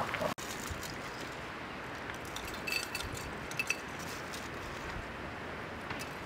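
A few light glass clinks with faint ringing, from a glass jar and its lid being handled while dried petals are shaken into a glass teapot, over a steady background hiss.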